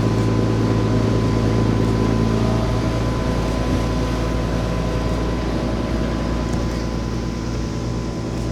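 Steady low engine drone with a constant hum, with no rise or fall in pitch.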